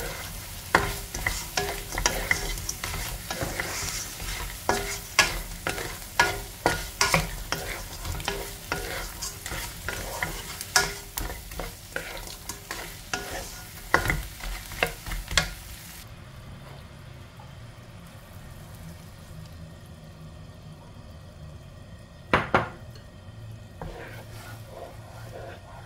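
Shrimp frying with onion in a hot nonstick pan, sizzling steadily, while a wooden spatula stirs and tosses them with frequent clicks and knocks against the pan. About sixteen seconds in the sizzle cuts off abruptly, leaving a quieter, duller background, broken a few seconds before the end by one brief loud clatter.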